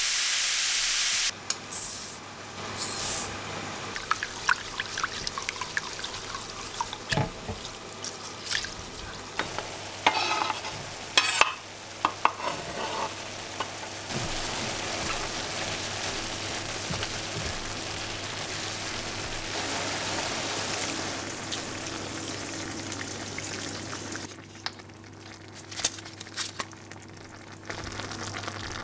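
Minced meat frying and sizzling in a stainless steel pan, stirred with a silicone spatula that scrapes and knocks against the pan. A loud hiss cuts off about a second in, and the sizzle is quieter near the end.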